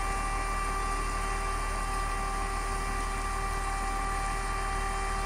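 Fire engine's motor and water pump running steadily, a low rumble under a constant whine, while it supplies a hose line.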